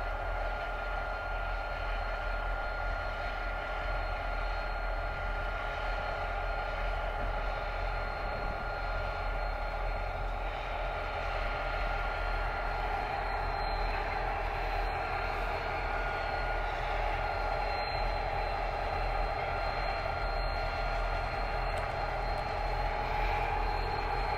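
Pacific National diesel-electric locomotives running at low power as they shunt slowly along a loop line: a steady engine drone with constant high-pitched whines over it.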